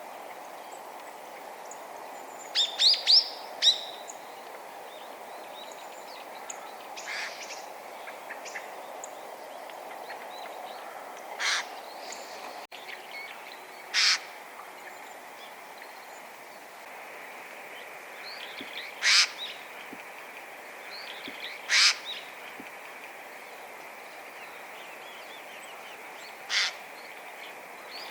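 Eurasian jay giving harsh, rasping screech calls: a quick burst of four short calls near the start, then about five single screeches spaced a few seconds apart, over a steady outdoor background hiss.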